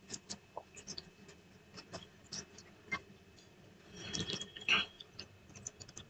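Eating by hand: fingers mixing and picking up rice and dal on a plate, with soft chewing and mouth clicks, and a louder, noisier stretch about four seconds in.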